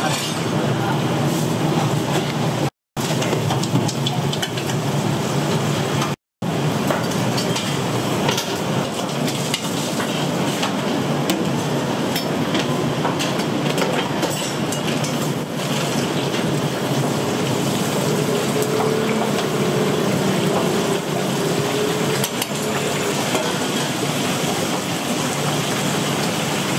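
Busy restaurant kitchen noise: a steady wash of clatter with dishes and utensils clinking, cut out twice for a split second at edits about three and six seconds in.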